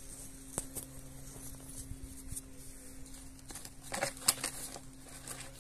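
Loose potting soil mixed with white grit spilling and rustling out of a small plastic pot into a black tub, with small ticks of grit, loudest about four seconds in. A faint steady hum runs underneath.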